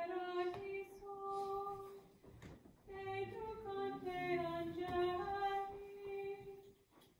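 A woman singing a slow, unaccompanied hymn solo: long held notes in two phrases, with a short break about two seconds in and again just before the end.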